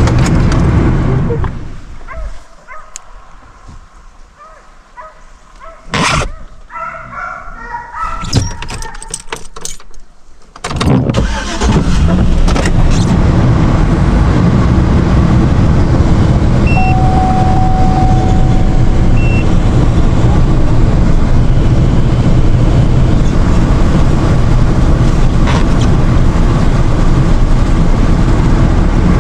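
Vehicle driving, with steady, loud road and engine noise. The noise drops away for several seconds near the start, with a sharp click about six seconds in, then comes back to full strength about eleven seconds in and holds steady.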